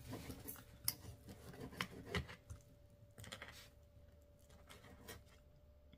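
Faint, scattered clicks and short scrapes of a knife and fork on a plate, cutting into and eating chicken milanese.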